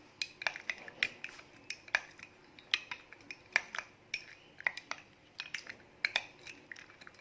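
A spoon stirring a drink in a glass, clinking against the glass about three or four times a second.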